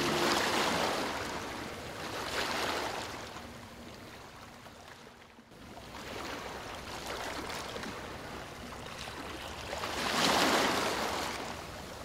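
Ocean waves breaking and washing in, each a rush of surf that swells and recedes. Surges come near the start, again about two and a half seconds in, and most strongly about ten seconds in, with a lull in between where it nearly dies away.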